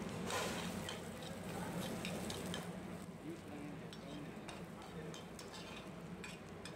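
Chopped garlic sizzling in oil in an aluminium frying pan, stirred with a metal spoon that scrapes and clicks against the pan again and again.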